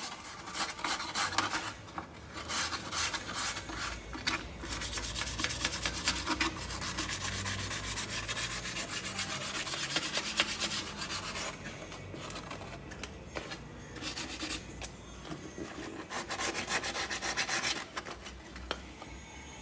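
Sandpaper rubbed by hand in quick back-and-forth strokes over the oil pan gasket surface of a Ford 4.6 V8 engine block, cleaning it for a new gasket. The strokes ease off briefly about twelve seconds in, then go on and stop just before the end.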